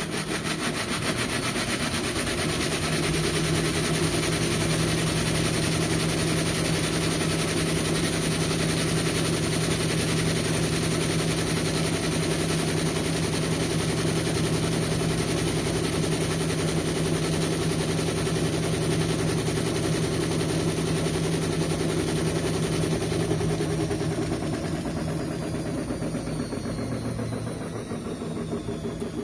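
Whirlpool washing machine running with a steady motor hum, then winding down over the last few seconds with a falling pitch.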